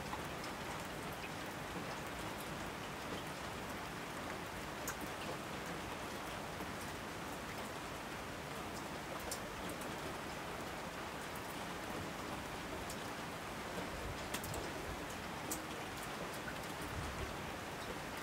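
Steady rain falling: an even hiss with scattered sharp drop hits.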